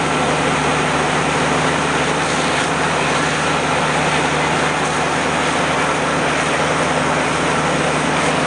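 Heavy engine running with a loud, steady drone and a constant low hum, unchanging throughout.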